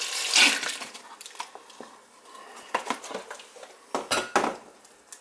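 Kitchen clatter of a soup pot and utensils: scattered clinks and knocks, the loudest two about four seconds in.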